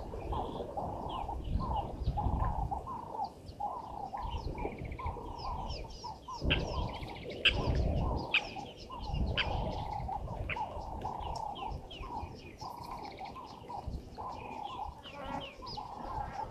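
Several wild birds calling at once: a run of short calls repeated about twice a second, with higher chirps and trills over them. A low rumbling noise comes and goes underneath.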